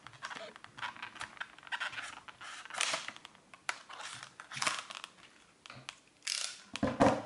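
Plastic retail packaging being torn and crinkled open by hand, a run of irregular scratchy crackles and rips, with a louder crunch near the end.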